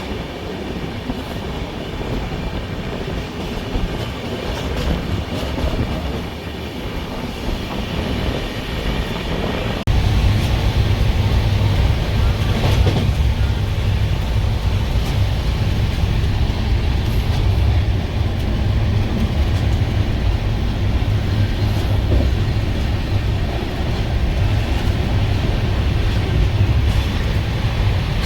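Express train's passenger coach running on the rails, heard from on board. About ten seconds in the noise suddenly gets louder, with a heavy low rumble that then holds steady.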